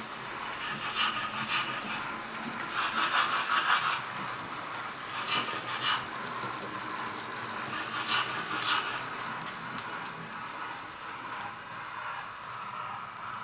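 OO gauge model steam locomotive with a DCC sound chip running into a station with a train of coaches: sound-chip steam effects hiss over the rattle of the model wheels on the track, with uneven louder bursts every second or two.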